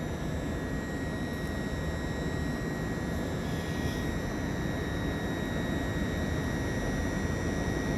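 Northern Class 170 Turbostar diesel multiple unit running slowly along the platform: a steady low diesel rumble that grows a little louder, with a thin steady high whine above it.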